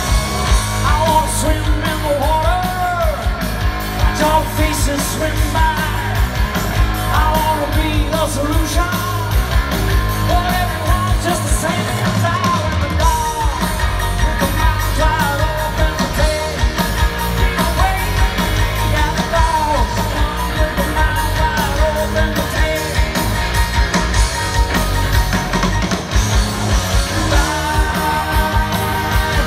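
Rock band playing live through a stage PA: electric guitars, bass, drums and keyboards under a sung lead vocal, heard from the crowd in front of the stage.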